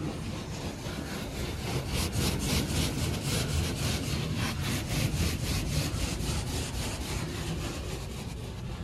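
Rotating foam-cloth brushes of a WashTec SoftCare Prevo rollover car wash scrubbing the car, heard from inside the cabin: a rhythmic swishing slap as the brush strips hit the body and glass, several times a second, easing off near the end.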